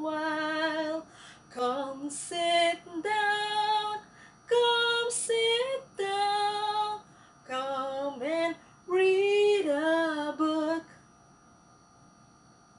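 A woman singing a children's song in phrases of long held notes, with short pauses between them. The singing stops about eleven seconds in.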